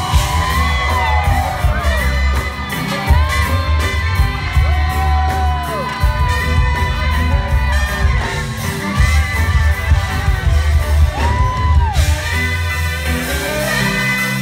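Live reggae band playing loud: a heavy, pulsing bass line with drums, guitars, keyboard and trumpet, over crowd cheering and whooping. The bass drops out near the end.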